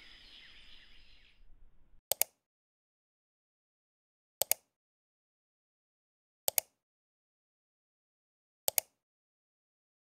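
Background music fading out over the first couple of seconds, then dead silence broken four times, about every two seconds, by a quick double click: a mouse-click sound effect on a subscribe-button end card.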